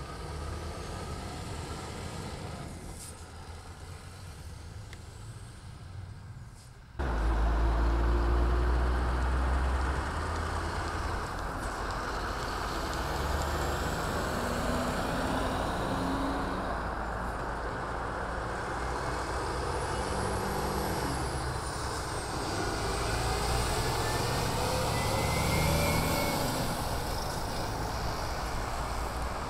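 Heavy diesel trucks, Scanias among them, driving past one after another, engines running and tyres rolling on the road. The sound jumps much louder about seven seconds in as a truck passes close, and a faint high whistle rises and falls in the second half.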